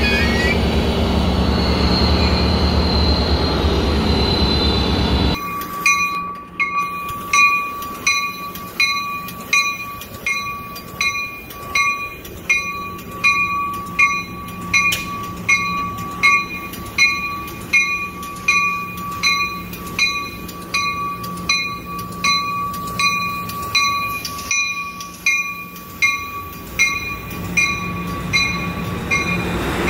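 Amtrak train with a Siemens locomotive passing close along a platform, a loud rumble with a high whine that slowly falls. About five seconds in the rumble drops away, and a bell rings steadily, about three strikes every two seconds, while the train runs on.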